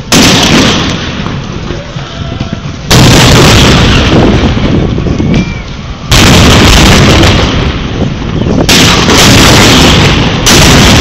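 Ships' cannons firing blank black-powder charges: five loud bangs about every two to three seconds, each followed by a long rumble. The shots are loud enough to overload the recording.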